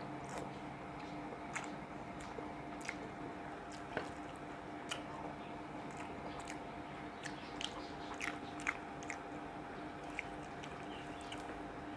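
Close-up eating sounds: a person chewing mouthfuls of rice, with scattered small wet clicks and smacks.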